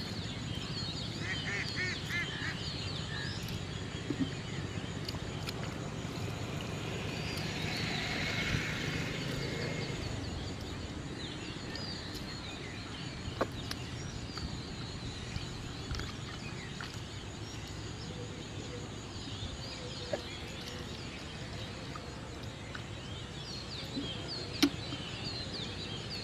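Birds chirping and calling over a steady low outdoor background noise, with a few short sharp knocks.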